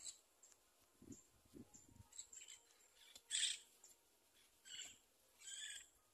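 Short, high-pitched bird calls, four of them, over an otherwise quiet background. Faint soft thuds in the first half are a long-handled tool packing soil around a wooden fence post.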